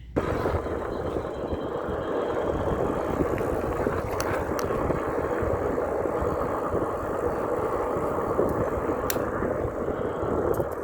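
Steady rushing wind and tyre noise from an e-bike being ridden. It starts abruptly and carries a few faint clicks.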